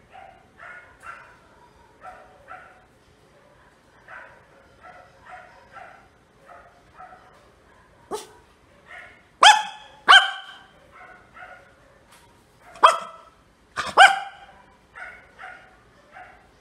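Miniature pinscher barking: a steady run of soft, short barks about twice a second, broken a little past halfway by four much louder, sharp barks.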